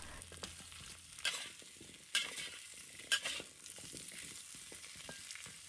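Pumpkin chunks and garlic frying in oil in a wok with a faint steady sizzle, while a spatula tosses them, scraping against the wok in three short strokes.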